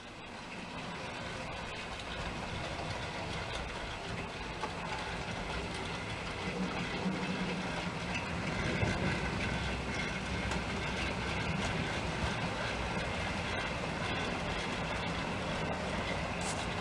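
Model railway trains running on the layout: a steady hum of the locomotive motors and wheels on track, with light clicking as the wheels cross rail joints.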